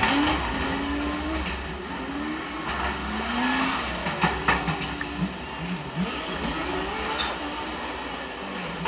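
Truck engine noise with a steady low rumble, its pitch rising and falling in short sweeps again and again, with a few brief clicks.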